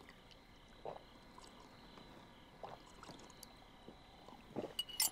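A person drinking water from a cup in a few soft swallows, about two seconds apart. Near the end comes a sharp clink of the cup.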